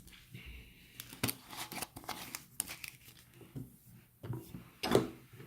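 Scattered crinkling and clicking from hands handling slime-making supplies, with a louder knock about five seconds in.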